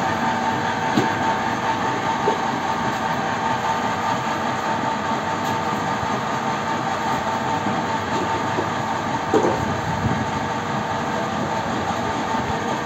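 Brick-making machinery running with a steady mechanical rumble and hum, broken by a few sharp knocks, the loudest about nine seconds in, as pallets of fresh bricks are handled.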